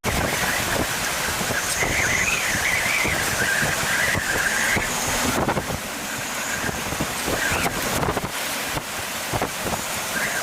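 Hurricane wind and rain buffeting the microphone in a steady loud rush. A high whistle wavers up and down for a few seconds near the start.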